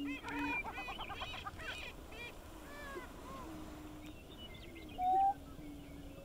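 Male greater prairie chickens booming on their lek: low, held moaning hoots that dip in pitch, repeated every few seconds. Over them, a rapid run of higher cackling calls in the first two seconds, and one short, loud rising call about five seconds in.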